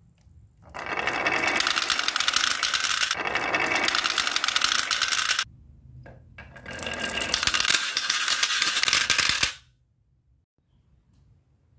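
Glass marbles rolling down a wooden marble run, a dense stream of clicking and rattling as they knock against the wood and each other. It comes in two runs, the first about five seconds long and the second about three, with a short break between.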